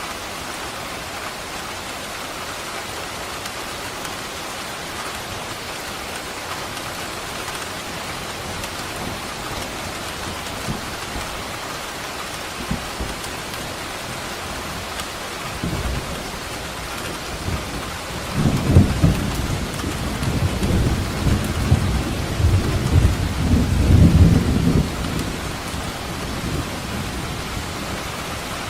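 Steady heavy rain falling, with a long rolling thunder rumble building in about two-thirds of the way through and dying away after several seconds.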